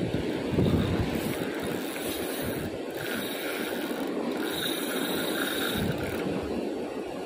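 Steady rushing noise of wind and ocean surf below a sea cliff, with wind buffeting the microphone.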